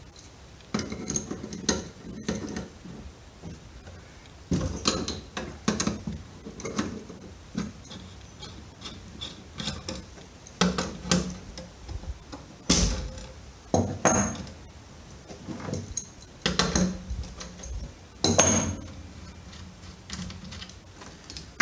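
Hand wrench turning a brass fuel-line fitting on an MEP-802A generator's fuel tank: short bouts of metallic clicking and clinking every second or two as the fitting is loosened, with the loudest strokes near the middle and near the end.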